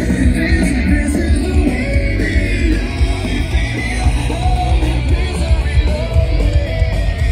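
Loud rock music with singing over a heavy bass line.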